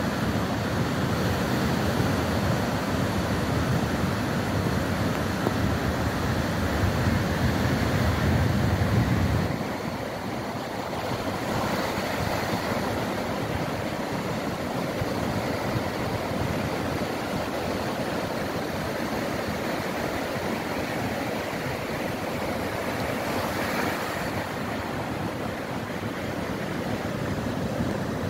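Ocean surf breaking and washing up a sandy beach, a steady rushing wash. A heavier low rumble sits under it for the first third or so, then drops away suddenly.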